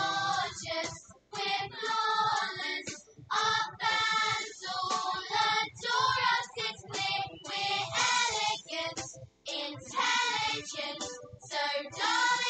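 Recorded song playing: young voices singing together in a choir over instrumental accompaniment, with a couple of short breaks between phrases.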